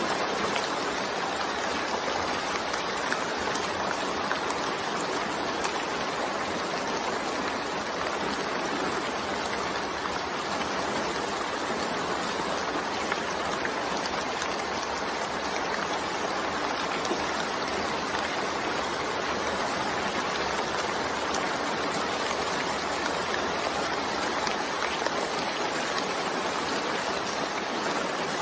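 Steady rain falling, an even continuous hiss with no breaks or changes.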